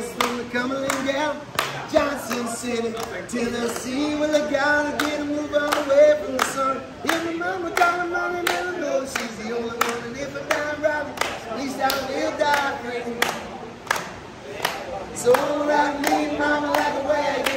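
Music: voices singing long held notes over steady, rhythmic handclaps.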